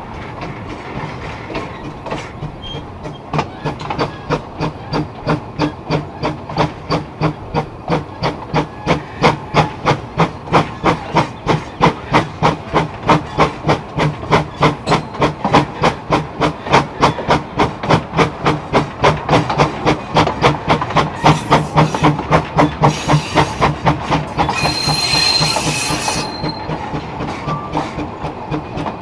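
Baldwin-built narrow-gauge steam locomotive working under way, its exhaust beating in a steady, fast chuff that grows louder a few seconds in. A hiss of steam joins for a few seconds about three quarters of the way through.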